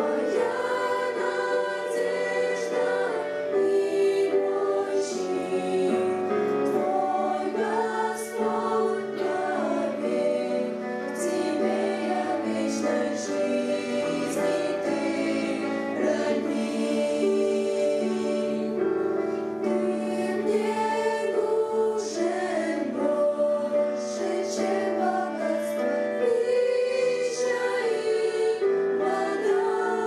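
Young women's vocal ensemble singing a hymn in several-part harmony through microphones, the sung lines continuing throughout.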